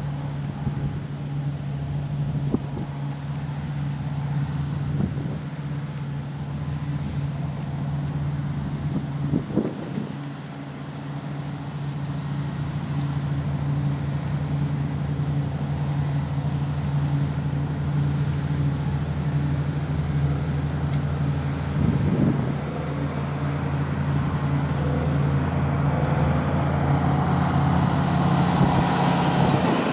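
Diesel engines of large harvest machinery running steadily, with a couple of brief knocks; the sound grows louder over the second half.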